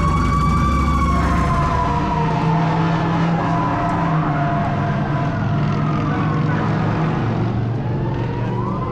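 Emergency vehicle siren wailing: one long, slow rise and fall in pitch, starting to climb again near the end, over a low, steady engine hum.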